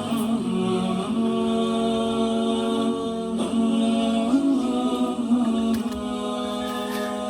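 Unaccompanied vocal singing in Arabic chant style: long held notes with brief ornamented turns between them.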